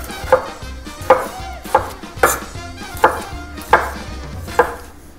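Chef's knife slicing a tomato on a wooden chopping board, the blade knocking sharply on the board seven times, a little under once a second.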